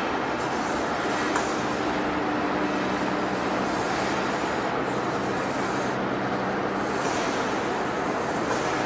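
Large heavy-duty lathe turning a big forged steel shaft: steady machine noise with a low hum.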